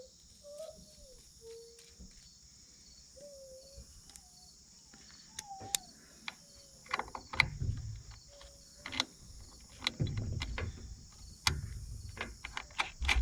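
Sharp clicks and knocks of a sling swivel being clipped onto a rifle's sling stud and tightened down, coming in clusters through the second half. A steady high insect chirring runs underneath, with a few short squeaky chirps in the first half.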